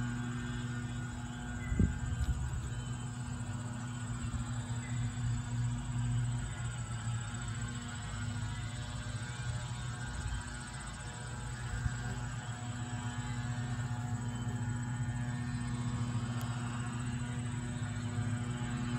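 Steady low hum made of several even tones, unchanging throughout, with a single short knock about two seconds in.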